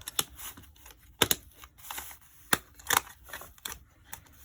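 Homemade fidget board being fiddled with: a handful of sharp, irregular clicks and snaps, about five or six in four seconds.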